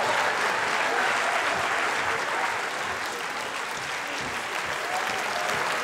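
Audience applauding steadily, easing off slightly midway and picking up again near the end.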